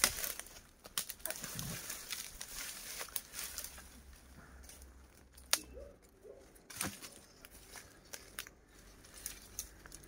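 Dry firewood sticks being handled: scattered sharp knocks and clicks over a light crackling rustle, with the two loudest knocks a little past the middle.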